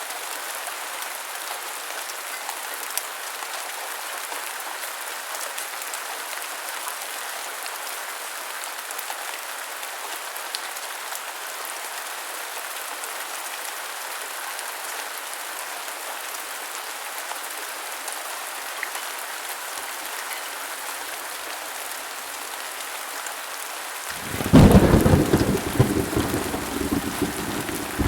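Steady heavy rain hissing. Near the end a sudden loud thunderclap breaks in and rolls on as a deep rumble.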